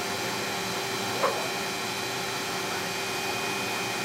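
Steady whir and hiss of the space shuttle cabin's ventilation fans, with a few steady hum tones. About a second in, one brief sound rises quickly in pitch.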